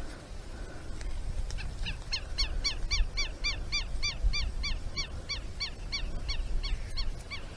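Southern lapwing (tero) calling: a fast run of repeated, sharp, arched notes, about four to five a second, starting about a second and a half in and carrying on to the end.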